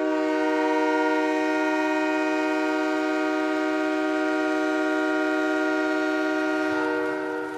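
Ice hockey goal horn: one long, steady air-horn blast sounding several tones at once, which fades out about seven seconds in.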